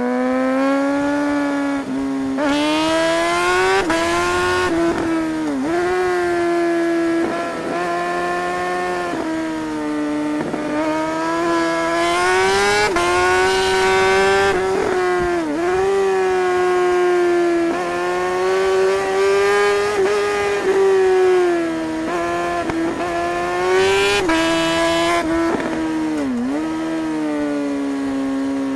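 Suzuki GSR 600's inline four-cylinder engine pulling at high revs, its note rising and falling through the corners, with short sharp dips several times where the throttle is closed or a gear is changed.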